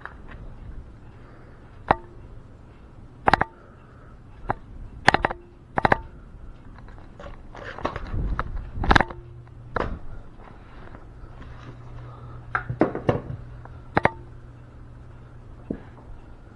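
A series of about a dozen sharp clicks and knocks at irregular intervals, several followed by a brief ringing tone, with a stretch of rustling handling noise around eight seconds in.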